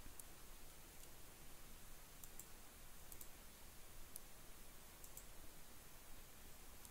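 A few faint computer mouse clicks, some in quick pairs, over a quiet background hiss.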